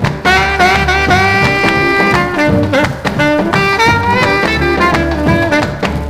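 A 78 rpm record of a 1950s R&B vocal-group song playing an instrumental passage with no singing: held horn notes over a steady swing beat.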